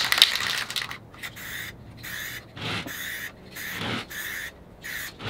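Aerosol can of spray lacquer, fitted with a trigger handle, hissing in a series of short bursts as a coat is sprayed on.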